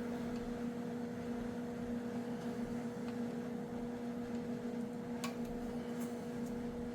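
Workshop room tone: a steady hum with a few faint clicks, one a little clearer about five seconds in.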